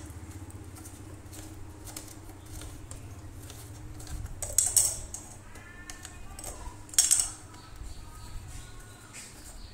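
Clicks and clinks of small fan parts being handled and fitted by hand onto the motor shaft and hub of a standing electric fan. Two louder clicks come about halfway through and a couple of seconds later, over a low steady hum.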